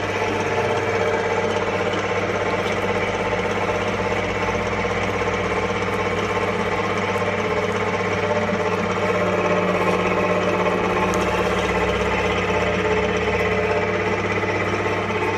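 Industrial frozen meat grinder running, a steady motor hum with a fast, even mechanical rhythm. It gets slightly louder a little past the middle.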